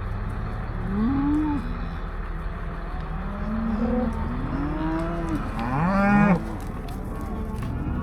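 Beef cattle mooing in several overlapping calls while cows and calves are pushed and sorted for weaning. The loudest, fullest call comes about six seconds in and stops abruptly.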